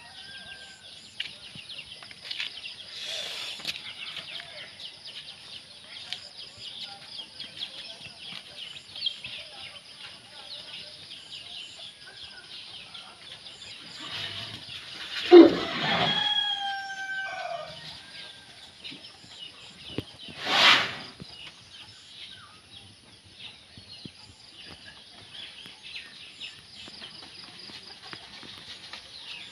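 A rooster crows once, about halfway through, over a steady high-pitched background hiss. A few seconds later comes a short, loud burst of noise.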